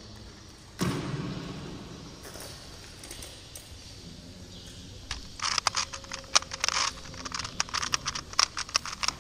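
A thump about a second in. From about five seconds in, a Rubik's Clock is being solved at speed: rapid, irregular clicking and rattling as its dials are spun and its pins pushed.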